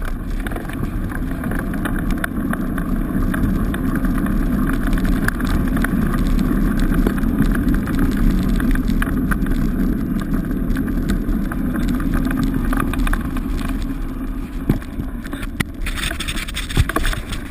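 Wheels of a dog scooter rolling fast over a wet, muddy gravel track: a steady rough rumble with gritty crackles and clicks, easing slightly near the end.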